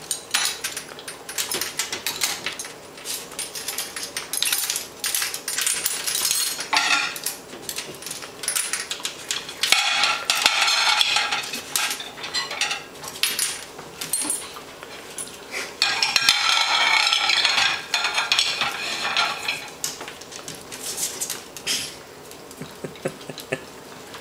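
Dishes and cutlery clinking and rattling as dogs lick them clean, with short clinks throughout and two longer bouts of clattering near the middle.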